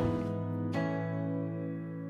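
Soft instrumental background music of held chords, with a new chord coming in about three-quarters of a second in.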